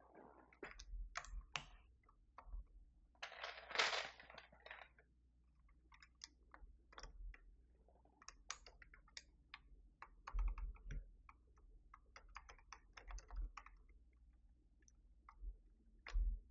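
Plastic keycaps clicking and clattering as they are handled and fitted onto a Keychron V6 Max mechanical keyboard. The clicks come irregularly, with a denser run of clatter about three to five seconds in and a few louder knocks later on.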